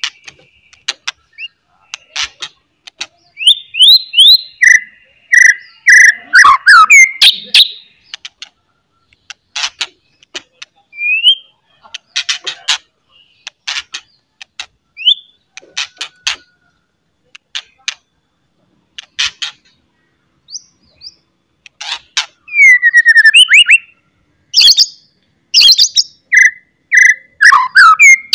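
White-rumped shama in full song: loud clear whistled phrases, some sliding down in pitch, mixed with rapid sharp clicking chatter (the 'cetrekan'). The song comes in bursts with short pauses between.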